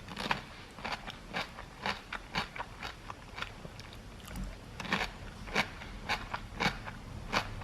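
A person chewing a crunchy cucumber: a run of irregular crunches and wet clicks.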